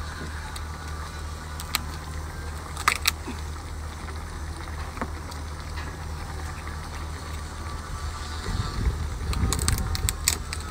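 Someone eating a boiled lobster by hand, with sharp clicks and crackles of shell and mouth noises, thickest near the end as she bites into the tail. A steady low hum lies under it throughout.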